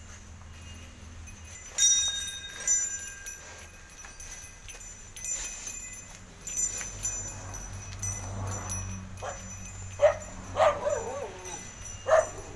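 Brass bell on a bull's neck clanking as the bull walks, with two clear ringing strikes about two seconds in. Near the end a dog barks three times.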